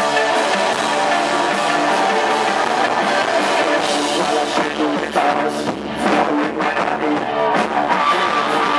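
Post-punk band playing live: electric guitar and sustained chords over a drum kit. The drum hits come through more sharply from about four seconds in.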